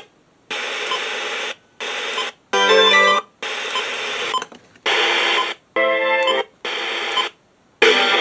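A radio receiver scanning through FM stations: about eight snippets of music and broadcast audio, each under about a second, broken up by short silences as the tuner jumps from station to station.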